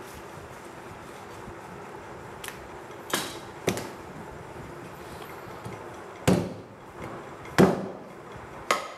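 Butchering a goat foreleg at the joint on a wooden chopping block: five sharp knocks of blade and meat on the wood, the two loudest and deepest a little past halfway.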